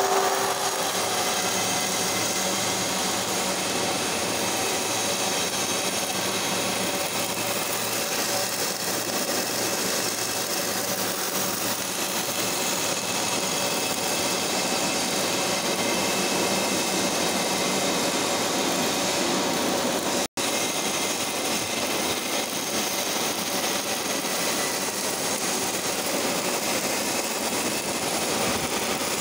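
Robotic wire-fed (MIG) arc welding on steel pipe: a steady hissing, crackling arc noise with no change in level. It cuts out for an instant about twenty seconds in.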